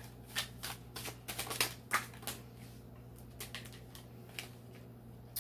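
A deck of oracle cards being shuffled by hand: a quick run of sharp card clicks and flicks that thins out after about two seconds into a few scattered taps.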